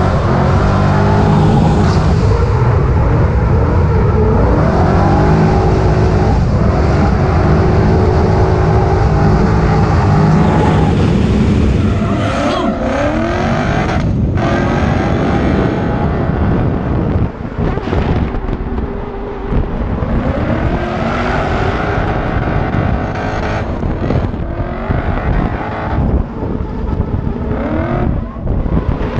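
Drift car's engine at full effort, revving hard and steadily at first, then about twelve seconds in swinging up and down in pitch again and again with short drops as the throttle is worked through the drift.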